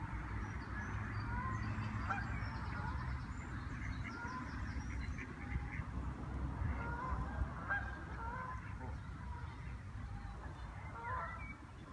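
Canada geese honking, many short calls coming one after another through the whole stretch, over a steady low rumble.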